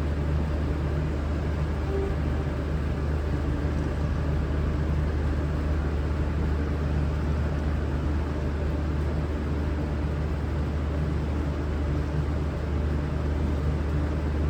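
V/Line VLocity diesel railcars idling: a steady low engine hum that does not change.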